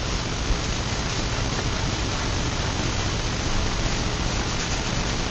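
Steady, even hiss of background noise with no distinct events in it.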